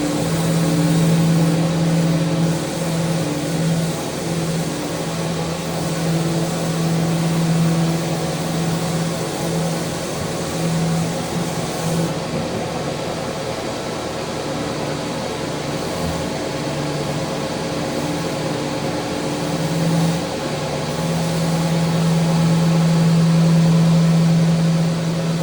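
Electric sander running steadily on a mounted wooden handrail, a motor hum over the sanding noise; the hum fades and returns every few seconds as the pressure on the rail changes.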